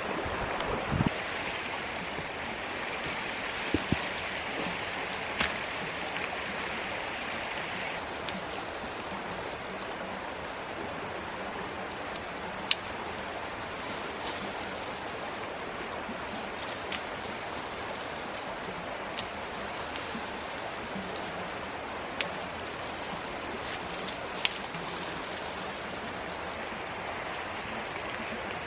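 Creek water flowing steadily, with a sharp snap every few seconds as dry twigs are broken off a dead brush pile.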